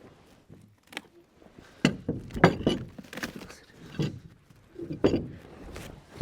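A large incense cedar log being rolled, its loose bark making it hard to roll: a run of irregular knocks and heavy thuds, about five strong ones from about two seconds in.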